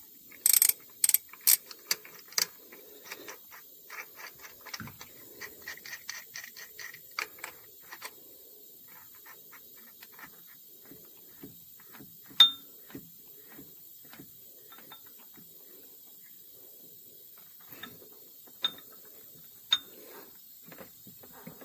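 Ratchet clicking as a thread tap is turned by hand into the engine's timing chain cover. Several sharp clicks come in the first couple of seconds, then a run of quick light ticks, then only the odd single click.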